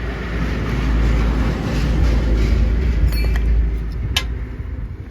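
A motor vehicle passing close by: a low rumble that swells and then fades away, with a sharp knock about four seconds in.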